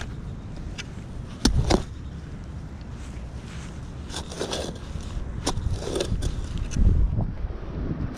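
A hand digging tool chopping and scraping into soil, with a couple of sharp strikes about one and a half seconds in and softer scrapes later, over a low steady rumble.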